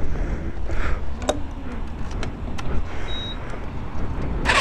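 Steady traffic rumble with a few scattered clicks as the sportbike's fuel tank is closed up. Near the end the motorcycle's electric starter begins cranking the engine.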